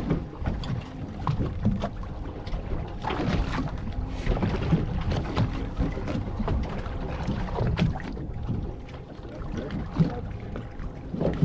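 Wind buffeting the microphone and water around a fishing boat's hull, with scattered knocks and clicks from gear on board.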